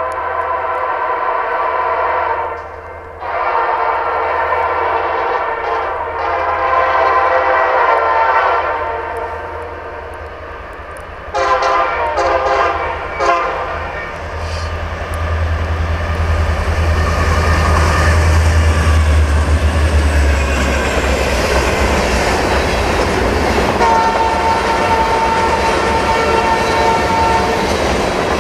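Ex-Burlington Northern SD60M freight locomotives sounding the air horn in long blasts, then two short blasts about 11 seconds in, as the train approaches. The diesels rumble heavily as they pass, then the freight cars roll by with wheel clatter, and a steady tone joins near the end.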